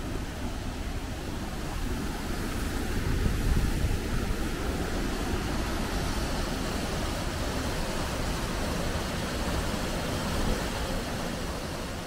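Steady rush of a river tumbling over rocky waterfalls, with a deep rumble underneath.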